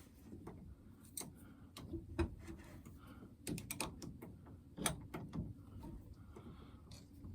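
Irregular clicks and taps of metal fittings being handled as a new swivel joint is lined up and threaded onto an air hose reel, with a quick run of clicks around the middle and one sharper knock a little later.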